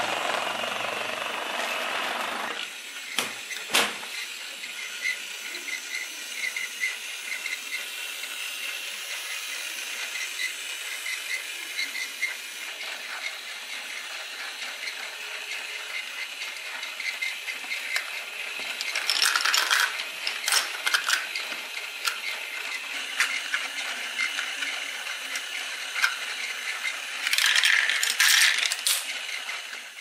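Plastic toy building bricks clicking and clattering as they are handled and moved, with denser bursts of clatter about twenty and twenty-eight seconds in. A steady rattling noise at the start cuts off about two and a half seconds in.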